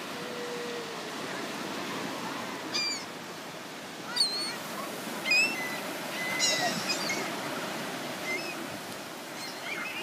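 Laughing gulls calling in a few short, high squawks over the steady wash of surf.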